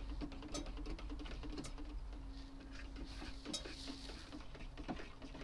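A spoon stirring stock in a plastic measuring jug, with a few light clicks and taps, over a low steady hum that comes and goes and holds longest in the middle.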